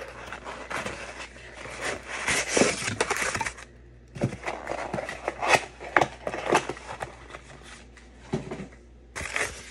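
Small cardboard box being opened and handled: rustling and scraping of the cardboard, with scattered sharp clicks and knocks.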